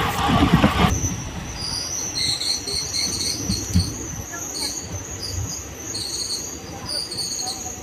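Express train heard from on board: loud running noise drops away abruptly about a second in, leaving a low rumble under a steady high-pitched whine and irregular high chirps.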